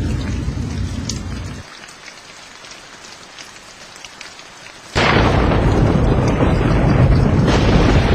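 Rain with a low rumble of thunder. The rumble drops away about a second and a half in, leaving a lighter patter of rain, then heavy rain and rumble cut back in suddenly about five seconds in.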